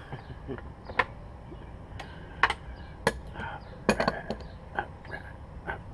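Irregular sharp metallic clicks and clinks of a hand tool working the carburetor bowl nut on a Lawn-Boy mower's carburetor, about nine knocks spread unevenly.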